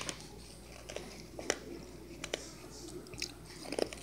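A few scattered light taps and clicks from small plastic toy figures and a drinking glass of ice water being handled.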